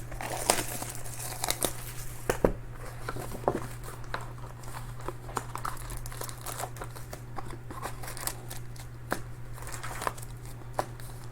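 Plastic wrappers of a trading-card box and its packs being torn open and crinkled by hand: irregular crackles and rips over a steady low hum.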